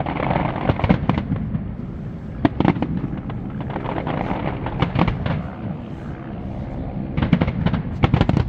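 Fireworks display going off: sharp bangs and crackling pops at irregular intervals, coming thickest about a second before the end, over a steady low background rumble.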